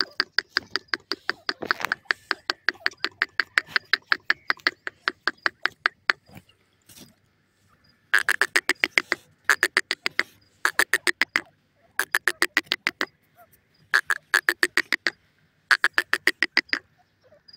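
Grey francolin calling: a rapid series of short, even notes, about six a second. One long run lasts some six seconds, followed by about six shorter bouts with pauses between them.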